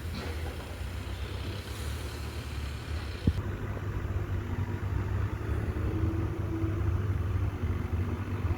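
A steady low engine rumble, as of machinery idling, with one sharp knock about three seconds in.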